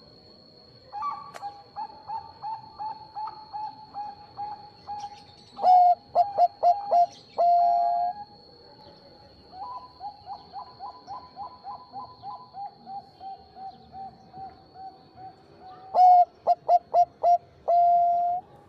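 Zebra dove (Bangkok perkutut) cooing: two songs, each a run of evenly spaced short coos, about two or three a second, that speed up into a quick staccato burst and end on a long held coo, once about eight seconds in and again near the end.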